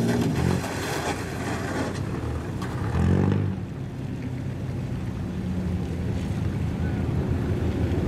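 Lowered cars rolling slowly over wet pavement: one car's engine rev falls away just after the start, another engine revs up and drops back about three seconds in, then a steady low engine hum continues over the hiss of tyres and rain on the wet ground.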